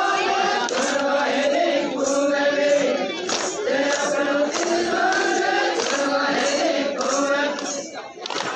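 A group of voices singing a chant together in long held notes for Adivasi garba dancing, over a regular percussive beat.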